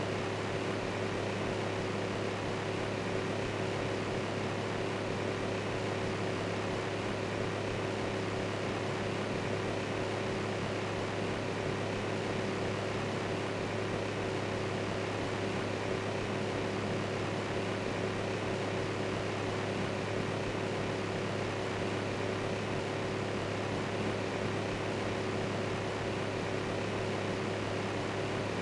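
Electric fan running steadily: an even whirring hiss with a low hum underneath and a faint steady tone above it, unchanging throughout.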